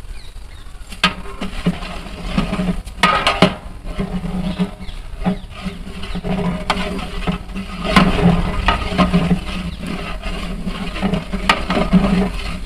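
Chicken curry cooking in a large pot, sizzling as it is stirred, with scraping and sharp knocks of the stirring spoon against the pot.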